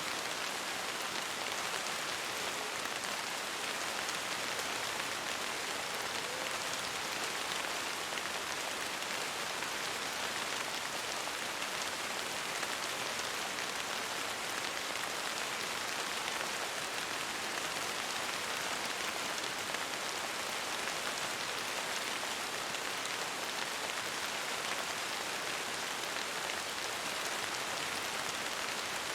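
Steady rain falling on a window pane: an even, unbroken hiss of many drops with no thunder or other events.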